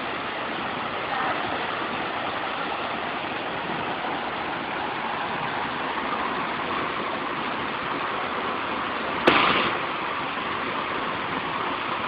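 A waterfall pouring steadily into its plunge pool, making a constant rush of water. A single sharp knock cuts through it about nine seconds in.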